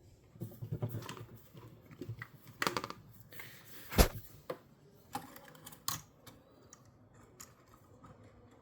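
Small clicks and knocks of a drone motor and its plastic housing being handled and pushed back into place, irregular, with one sharp, louder click about four seconds in.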